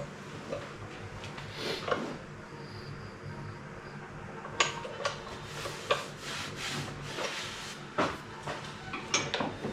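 Hand work on a UTV side-mirror mount: scattered sharp clicks and taps of hardware and tools being handled, with some rubbing. The taps come more often in the second half, the loudest about four and a half seconds in.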